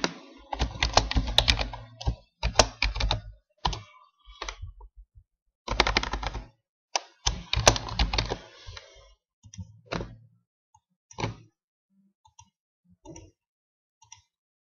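Computer keyboard typing in quick runs of keystrokes, with pauses between them, followed by sparser single clicks in the last few seconds.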